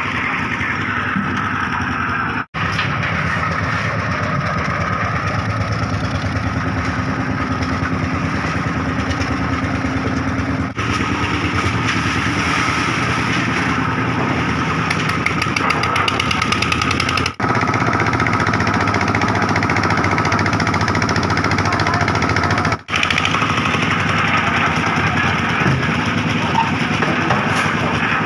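Concrete mixer's engine running steadily while gravel is loaded into its hopper. The sound drops out briefly four times.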